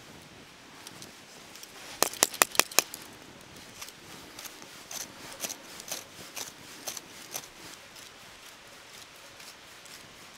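Swiss Army knife saw blade tip scraping and clicking as it is twisted into hazel wood to bore a hole along the grain, with a quick run of about five sharp clicks about two seconds in and softer scattered scrapes after.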